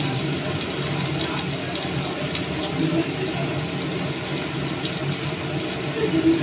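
Steady low mechanical hum with a few faint light clicks.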